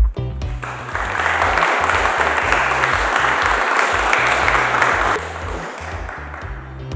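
Crowd applauding over background electronic dance music with a steady beat; the applause swells about a second in and dies away after about five seconds.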